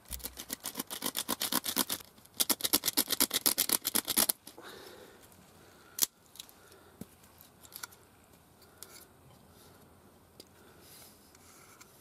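Hardwood arrow shaft being scraped down to size with a hand-held tool: rapid back-and-forth scraping strokes, about seven a second, in two runs with a brief pause, stopping about four seconds in. A single sharp click about halfway through, then a few faint ticks.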